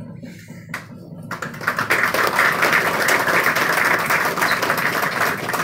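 Audience applauding: dense clapping that starts about a second and a half in and carries on loudly. A single sharp knock comes just before it.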